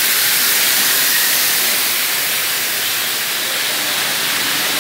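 Steady, loud hiss of running factory machinery, with no rhythm or knocks.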